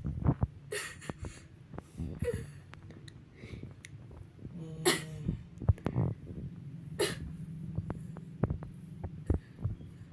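A young child coughing a few times in short noisy bursts, the itchy-throat cough of a child with a cold and fever, over a steady low hum.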